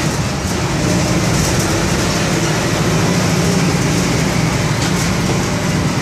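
Four-cylinder inline MWM 4.12 TCE turbodiesel of an Agrale MA 8.5 microbus chassis running steadily, a constant low drone with only slight wandering in pitch.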